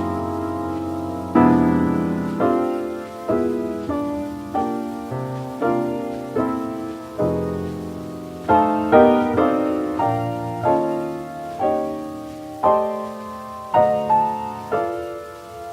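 Jazz piano playing a string of struck chords, each ringing out and fading, roughly one or two a second, from a 1952 recording transferred from a 78 rpm record.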